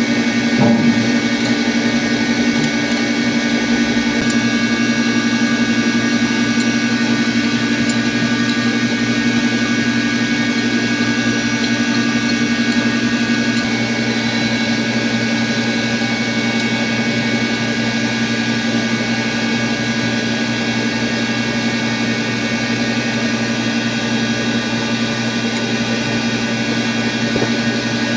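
Steady drone of running electric pump motors: a constant low hum with several steady higher tones over it. A short knock about a second in.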